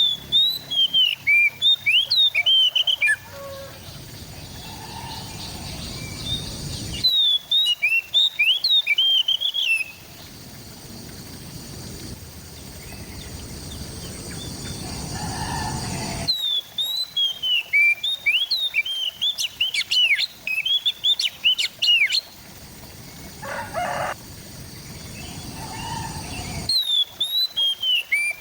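Oriental magpie-robin (kacer) singing: four bursts of rapid, varied whistled notes, each about three seconds long, coming roughly every nine to ten seconds, with a harsh crackly run in the third burst.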